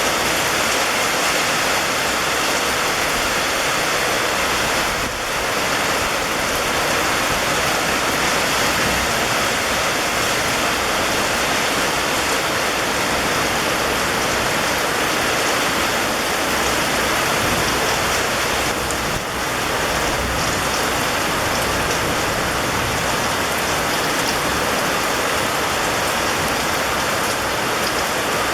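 Steady rain falling, an even dense hiss that dips briefly twice.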